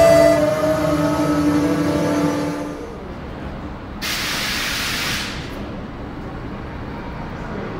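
A held chord of steady tones from the intro ends about three seconds in. Railway station ambience follows, with a sharp burst of hissing compressed air lasting about a second, typical of a locomotive's air system venting.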